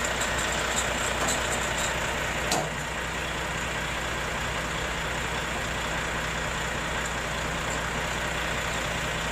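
Truck engine idling steadily, with one short knock about two and a half seconds in.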